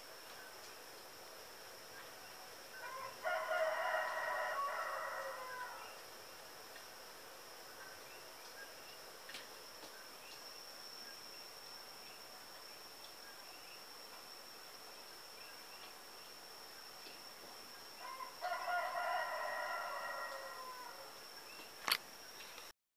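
A rooster crowing twice, each crow lasting about three seconds, heard off a laptop's speakers. A steady high-pitched drone runs underneath, and a sharp click comes near the end.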